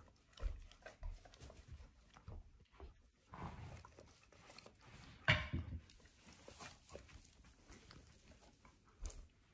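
Two golden retrievers licking each other's muzzles: soft, intermittent wet licking and snuffling noises, with one louder short noise about five seconds in.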